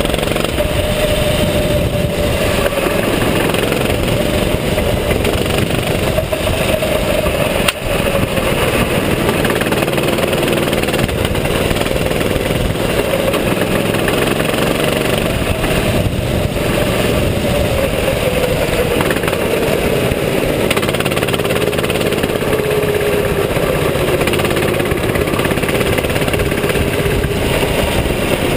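Sodikart RT8 rental kart engine running under load through a lap, its pitch rising and falling gently with speed, over a steady rushing noise. A single sharp click about eight seconds in.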